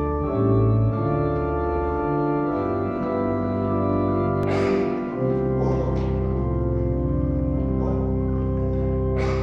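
Organ-voiced keyboard playing slow, held chords as the introduction to the piece, with two brief rattling swells, one about halfway and one near the end.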